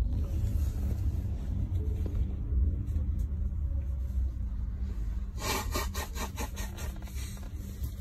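Low, steady rumble of a passenger train heard from inside the carriage, with a constant hum under it. About five seconds in there is a quick run of clacks lasting around a second.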